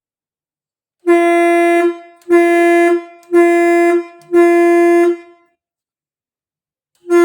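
Truck horn fitted on a tractor sounding four short blasts of under a second each, about a second apart, then a fifth blast near the end; each blast is one steady, unwavering pitched tone.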